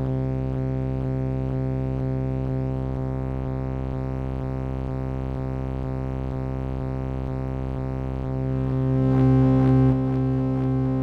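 Steady synthesizer drone passed through a Eurorack function-generator channel, its upper harmonics pulsing about three times a second. From about eight and a half seconds in it turns brighter and louder as knobs are turned.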